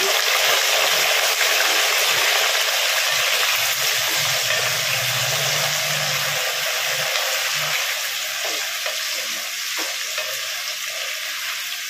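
Cubed raw potatoes sizzling as they hit hot mustard oil in a clay pot, stirred with a plastic spatula. The sizzle is strongest at first and slowly dies down.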